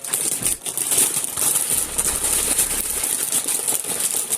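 Crinkling candy wrappers and small packaged candies and toys clattering together as they are packed into a mini toy claw machine, with a dense run of small clicks and rustles throughout.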